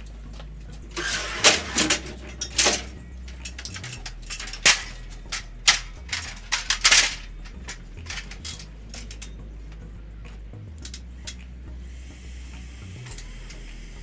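Aluminium ladder and hand tools being handled, giving a run of sharp metal clanks and rattles over the first half, then a few lighter clicks, over a low steady rumble.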